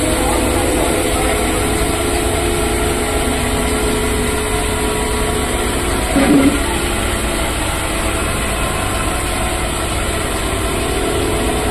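Hydro extractor (centrifugal spin dryer) with a 2 HP three-phase electric motor running at a steady speed, a constant hum with a brief louder sound about six seconds in.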